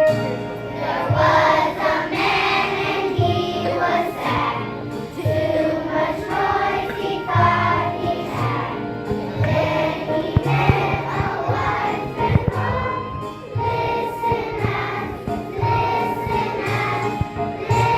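A group of children singing together in chorus, a song from a school musical, over instrumental accompaniment with steady bass notes.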